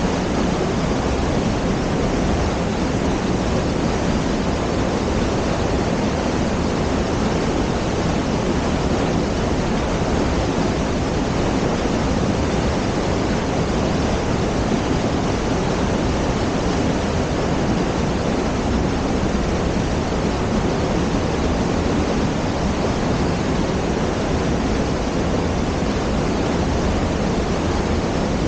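The Maligne River's fast water rushing through a narrow rock gorge: a loud, steady, unbroken rush of water.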